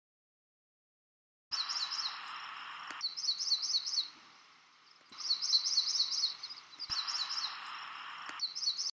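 Recorded song of a MacGillivray's warbler: phrases of quick, high chirping notes repeated over a steady background hiss. The recording starts abruptly about a second and a half in and is pieced together from several abruptly joined segments.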